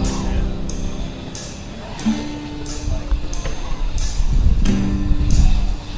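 Edit soundtrack music: sustained chords over a steady beat, about one stroke every two-thirds of a second.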